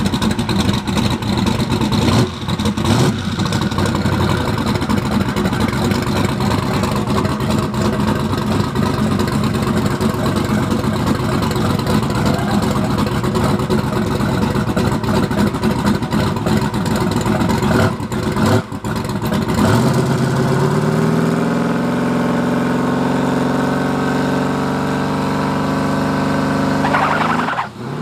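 Drag car's engine revving hard on the starting line. From about two-thirds of the way through it holds a steady high rpm, then rises in pitch as the car launches near the end.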